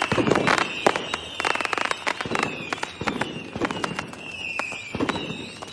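Diwali firecrackers going off in rapid, irregular cracks and pops, dense throughout, with a high whistle falling in pitch again and again over them.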